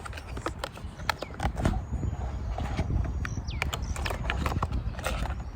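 Kendama being unpacked and handled: irregular clicks, knocks and rustling of packaging over a low steady rumble.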